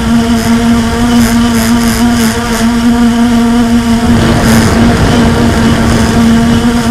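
Blade 350 QX quadcopter's electric motors and propellers running in flight, a loud steady buzz heard through the camera on its airframe. About four seconds in, the buzz turns rougher and less even for a second or so, then steadies again.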